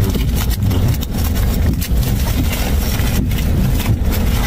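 Steady low rumble of a car idling, heard from inside the cabin, with paper and foil food wrapping crinkling a few times as it is handled and opened.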